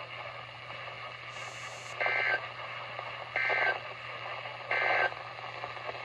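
NOAA Weather Radio broadcast static through a weather radio's speaker, broken by three short, identical buzzy data bursts about 1.4 s apart: the SAME end-of-message code closing the marine warning.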